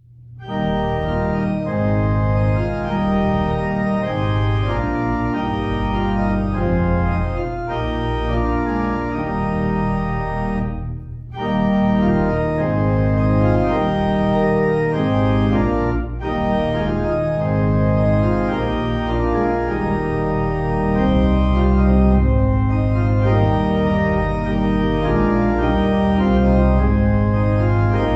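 Organ playing a slow piece in held chords, starting just after the beginning, with a brief break between phrases about eleven seconds in.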